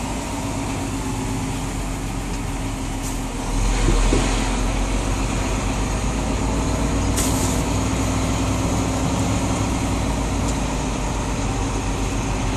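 Engine of a delivery vehicle heard from inside its cab while driving along a dirt track: a steady low rumble that grows louder about four seconds in.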